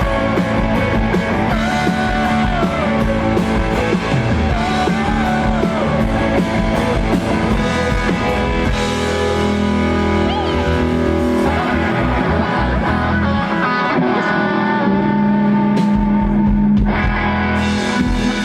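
Rock band playing, with guitar to the fore and bent, gliding guitar lines in the first few seconds.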